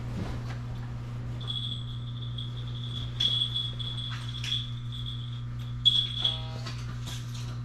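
A high-pitched electric buzzer rings continuously for about five seconds, with a few short breaks, starting about a second and a half in: a train departure warning before the doors close. Under it runs the steady low hum of the stopped train.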